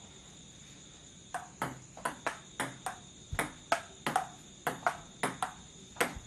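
Table tennis rally: the light plastic ball clicks off the paddles and a Powerspin 200 table, starting about a second in at two to three clicks a second. Crickets chirp steadily behind it.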